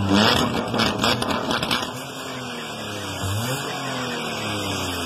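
Car engine revving, its exhaust ending in an open, makeshift pipe under the floor. The revs rise and fall, with a rough crackle in the first couple of seconds and a rise about three seconds in.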